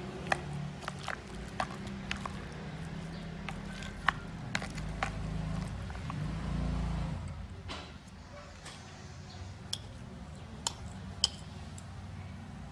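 A metal spoon stirring raw chicken feet in a thick marinade in a plastic bowl: soft wet squishing with scattered sharp clicks as the spoon and bony feet knock against the bowl, over a steady low hum.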